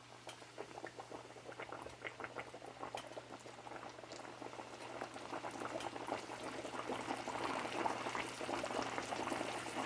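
Hot cooking oil sizzling and crackling as flour-battered pork chops go into the pan, the sizzle building steadily louder.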